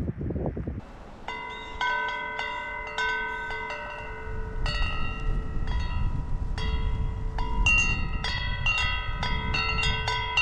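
Wind chimes ringing in strong gusts: several tuned metal tones struck over and over at irregular moments, starting about a second in, with wind rumbling on the microphone underneath.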